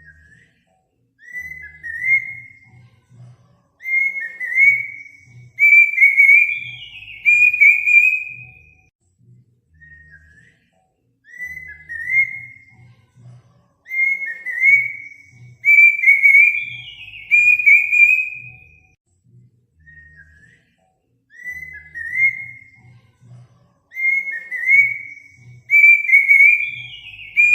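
Looped bird-tutoring recording of kedasi cuckoo song: a series of clear whistled notes that rise and quicken, ending with a higher falling note. The phrase repeats about every ten seconds, with faint low thuds beneath.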